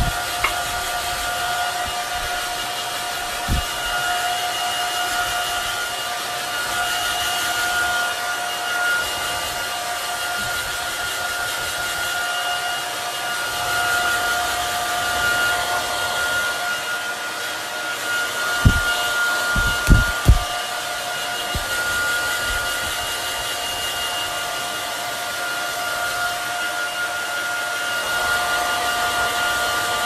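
Hair dryer running steadily: a rush of blowing air with a steady whine over it. A few low thumps break in, one a few seconds in and a cluster of three just past the middle.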